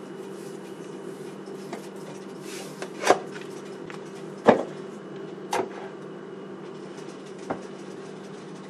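A few sharp knocks of kitchenware, about four spread over several seconds, the loudest two about three and four and a half seconds in, over a steady low hum.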